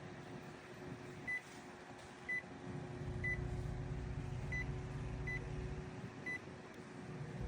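Battery-powered portable fan running with a steady hum. Six short, high beeps sound about once a second over it.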